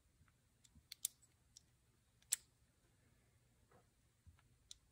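A few short, sharp clicks of small metal parts as a Honda Spree starter Bendix and its snap ring are handled, the loudest about a second in and just past two seconds in, with a smaller one near the end. Between the clicks it is near silent.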